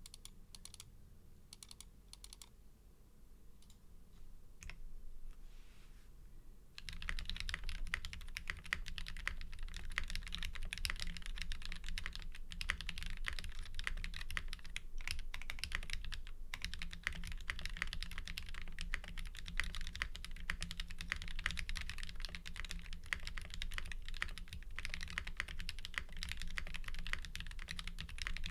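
Mechanical keyboard typing on an LZ CLSn 96% board: top-mount brass plate, lubed NovelKey Cream linear switches with 205 g springs, and GMK keycaps. A few scattered keystrokes, then steady fast typing from about seven seconds in.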